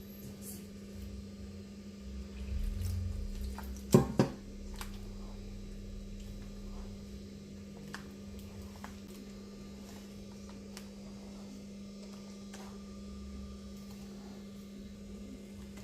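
Gram-flour batter being stirred in a bowl, soft and wet, with two sharp knocks about four seconds in, over a steady low hum.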